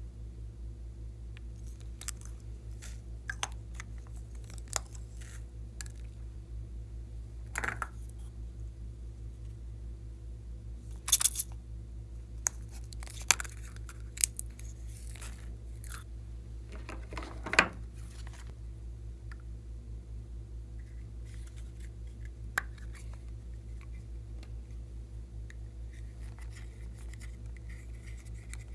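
Small plastic containers of slime add-ins, such as sprinkles and glitter, being handled, opened and scraped. There are scattered clicks and crinkles and a few sharp plastic clacks, most of them in the middle stretch, over a steady low hum.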